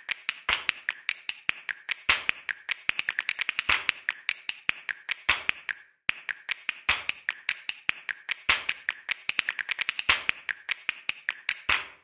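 A rapid, uneven run of sharp clicks and taps, several a second, with a short pause about six seconds in; it starts and stops abruptly.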